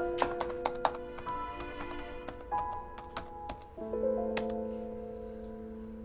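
Typing on a laptop keyboard: an irregular run of quick key clicks that stops about four and a half seconds in. Soft piano background music plays under it.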